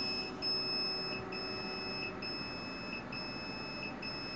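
Sturdy SA-230FA tabletop autoclave's buzzer beeping: a high tone repeated in pulses with short gaps. The buzzer signals that the exhaust phase is over and the cycle is moving on to drying.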